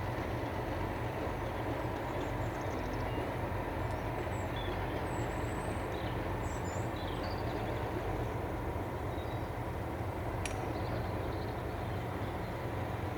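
Class 37 diesel locomotive's English Electric V12 engine running steadily. A single sharp click sounds about ten and a half seconds in.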